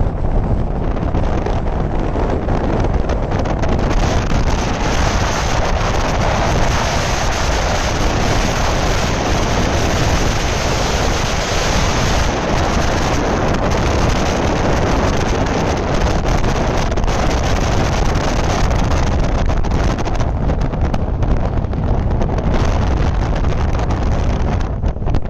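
Wind buffeting the microphone over the steady running noise of a moving passenger train.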